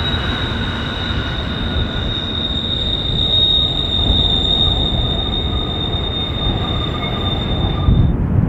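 A train's steel wheels squealing against the rail, a single steady high-pitched squeal over the rumble of the passing cars. The squeal cuts off abruptly near the end.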